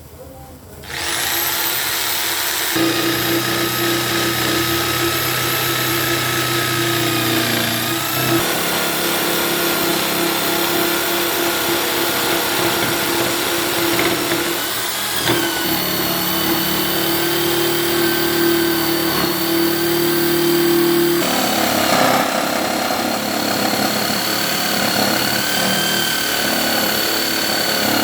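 Electric woodworking power tool's motor spinning up and running steadily with a high whine that dips briefly a few times, then stops abruptly.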